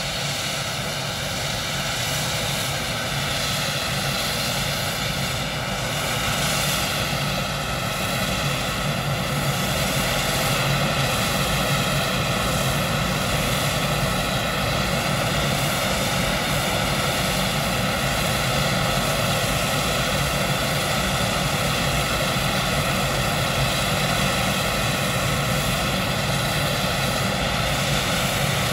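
Boeing 777 auxiliary power unit, a small gas-turbine engine in the tail cone, running: a steady jet roar with several high whining tones. It grows slightly louder about six seconds in, then holds steady.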